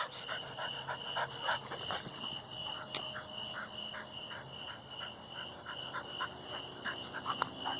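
A chorus of calling animals: a steady high-pitched drone with short calls repeating about three times a second.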